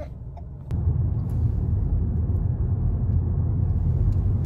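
Low, steady rumble of a car travelling on the road, starting abruptly about a second in.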